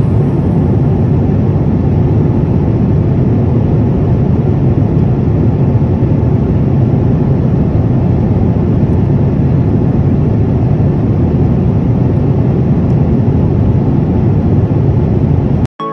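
Loud, steady low rumble of cabin noise inside a moving vehicle, with no distinct tones, cut off abruptly near the end.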